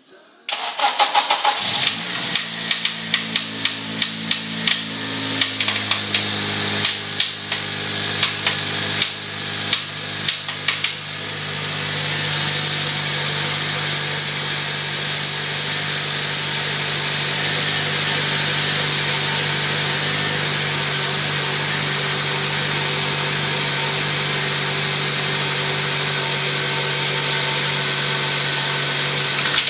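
A 2008 Honda Civic Si's four-cylinder engine starts about half a second in and runs with a very loud, repeated knocking, clearest over the first ten seconds or so, then settles into a steadier, slightly louder running sound. The knock came on suddenly and marks a serious internal engine fault.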